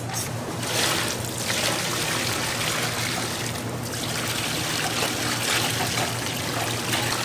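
Liquid pouring and trickling steadily: broth going into a pot of fish cakes, over a steady low hum.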